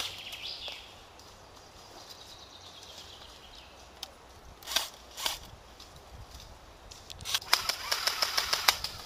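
Airsoft guns firing: two single sharp shots about halfway through, then a rapid run of about nine shots a second lasting a second and a half near the end.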